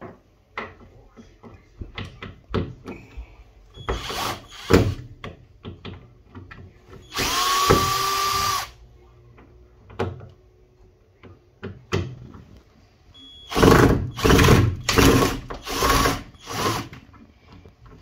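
Cordless drill-driver undoing the screws of a fridge door hinge: scattered clicks and knocks, then one motor run of about a second and a half with a slightly rising whine, and about five short runs in quick succession near the end.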